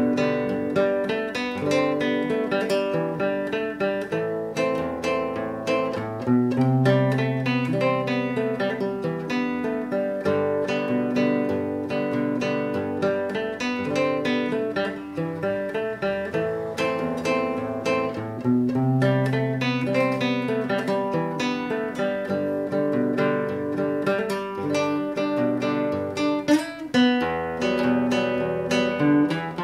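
Solo nylon-string classical guitar played fingerstyle: plucked melody notes over bass notes, with a phrase that comes round again partway through.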